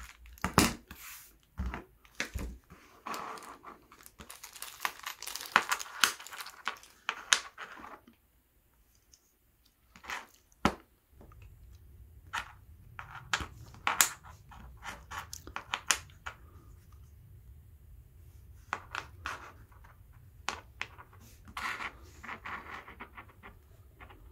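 Thin plastic parts bags crinkling and tearing for the first several seconds, then, after a short pause, a run of sharp clicks and light knocks as small anodised aluminium gearbox parts are handled and set down on a table.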